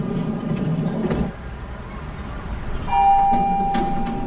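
Elevator arrival chime: one bell-like ding about three seconds in that rings on for a couple of seconds. It follows a low rumble that cuts off about a second in.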